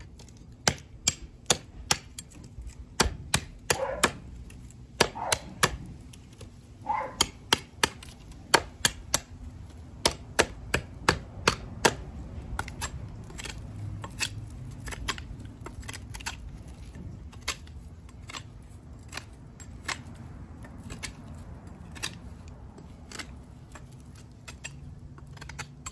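Work Tuff Nomad field knife chopping the end of a piece of dry wood into a point. Sharp woody knocks come one or two a second and are loudest in the first half, then give way to lighter, quicker cuts.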